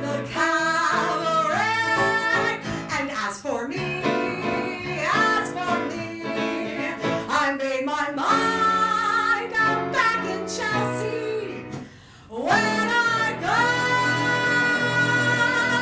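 A woman singing a musical-theatre song into a microphone over instrumental accompaniment, ending on a long held note near the end.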